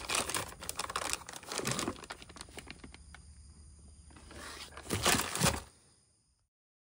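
Plastic bag crinkling and rustling as a boxed harmonic balancer is handled and pulled out of its cardboard box, with a louder burst of crinkling about five seconds in before the sound cuts off near the end.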